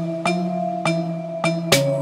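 Background music: sharp percussion hits over steady held tones.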